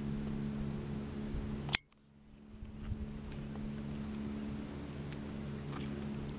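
Steady low hum. A single sharp click about two seconds in, after which the sound cuts out briefly and fades back in.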